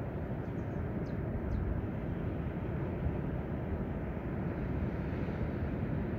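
Steady low rumble of surf breaking on a sandy beach, with a few faint high chirps in the first two seconds.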